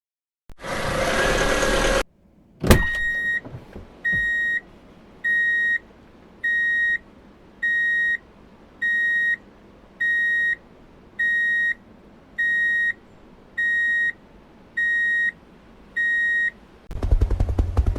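Electronic reversing-alarm beeper, one high-pitched beep about every second, repeated a dozen times, then stopping. Before it comes a short rush of noise and a sharp click, and near the end a louder, busier sound with a low hum comes in.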